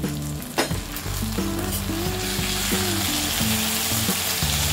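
Brinjal pieces in green masala paste sizzling in hot oil in a steel kadai, the sizzle growing louder about two seconds in as a slotted spoon stirs them; a single short clink about half a second in.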